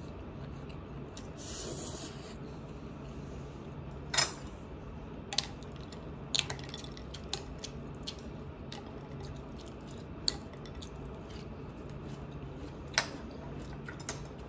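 Chopsticks and a spoon clicking and tapping against dishes now and then during a meal, a few sharp ticks spread over several seconds, over a low steady hum.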